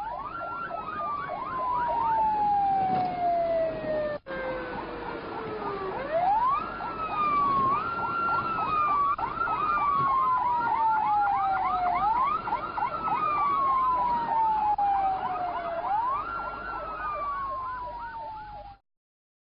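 Two emergency vehicle sirens sounding together: one a slow wail that jumps up and slides down over several seconds, again and again, the other a fast warble of short rising and falling sweeps. They break off for an instant a few seconds in and stop abruptly near the end.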